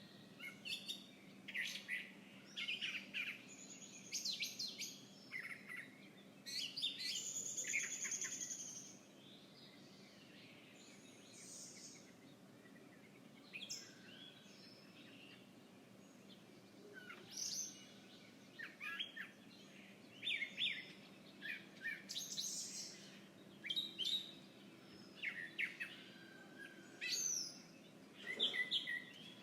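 Wild birds chirping and calling outdoors in short, high, repeated phrases. The calls come thick for the first several seconds, thin out for a while in the middle, then pick up again.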